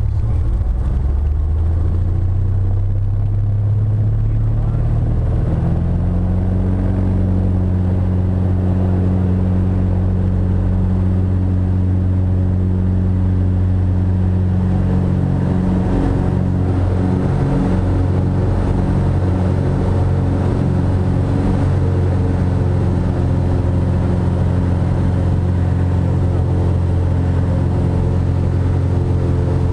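Cessna T-41's 210 hp six-cylinder engine and constant-speed propeller at takeoff power, heard from inside the cockpit. The engine's pitch climbs over the first six seconds or so as it comes up to full power on the takeoff roll, then holds steady through liftoff and the climb.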